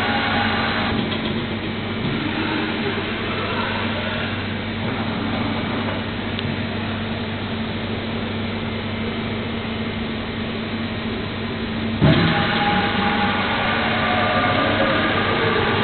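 Makino FNC60A20 CNC vertical machining center running with a steady mechanical hum. About twelve seconds in, a louder noise comes in suddenly on top of the hum.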